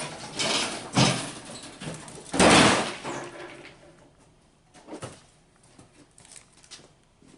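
Handling noise: a couple of knocks, then a loud sliding scrape about two and a half seconds in, followed by a few faint clicks.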